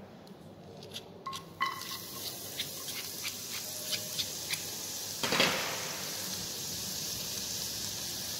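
Chopped garlic hitting hot oil in a small saucepan, frying with a steady sizzle and scattered crackling pops, after a few light clicks about a second in. The frying is briefly louder a little past five seconds.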